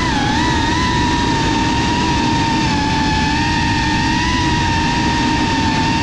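FPV quadcopter's brushless motors and propellers whining at a fairly steady throttle, the pitch wavering only slightly, over a rough low rumble of airflow and vibration picked up by the onboard camera.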